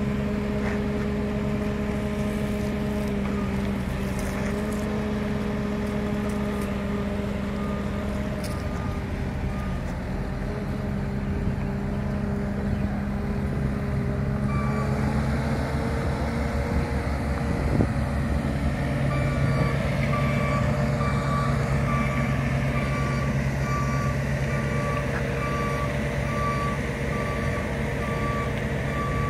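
Diesel engines of compact construction machines running steadily, with a backup alarm beeping about once a second. The beeping comes in briefly early on and then runs through most of the second half, which means a machine is reversing.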